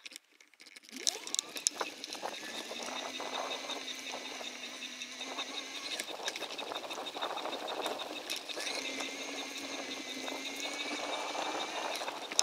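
Bicycle riding along a trail: rolling tyre noise with scattered clicks and knocks from bumps, coming in about a second in. A steady whine runs underneath.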